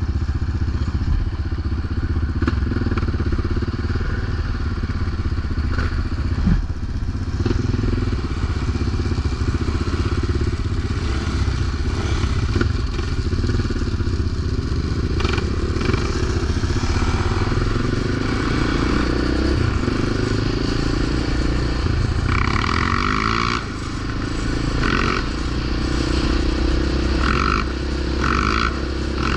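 Quad ATV engine, a Yamaha Raptor 700's single-cylinder four-stroke, running continuously while the quad is ridden, its pitch rising and falling with the throttle. Scattered clatter and scraping mix in.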